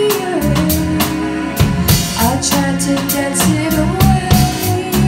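Live band playing a soul song: a female lead vocal over a drum kit with a steady beat, bass, electric guitar and keyboard.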